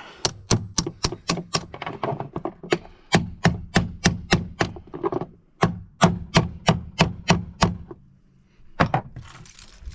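Hammer tapping repeatedly on the metal ignition lock in an Audi's steering column, about three sharp strikes a second with a high metallic ring, pausing briefly partway and stopping about eight seconds in, with one last strike near the end.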